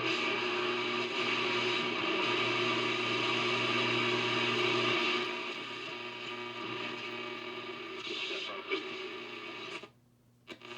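RCA ACR-111 valve communications receiver putting out a loud rush of hiss and distortion with steady whistles through it, overloaded by a very strong local broadcast station that its AGC circuit is not holding back. The noise eases a little about halfway through and cuts out almost completely for a moment near the end.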